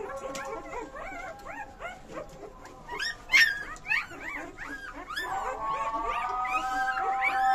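Young puppies squeaking and whimpering: many short, high-pitched, arching cries overlapping one another, with one louder cry about three seconds in.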